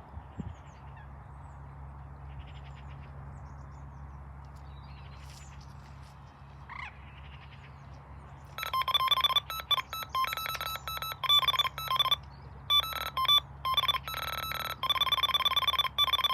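A carp fishing electronic bite alarm sounding a rapid, continuous toning for long stretches with brief breaks, starting about eight and a half seconds in: a fish running with the bait and taking line. Before that, only a low steady rumble.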